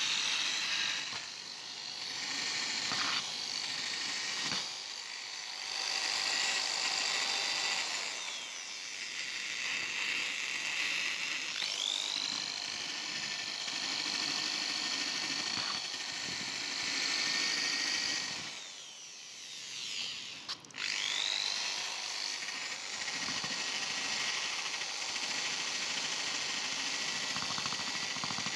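Handheld high-speed rotary tool with a wire-brush bit scrubbing rust off an old wrench: a steady high whine over the scratch of the brush on the metal. It drops away briefly a few times and spins back up with a rising whine about twelve seconds in and again about twenty-one seconds in.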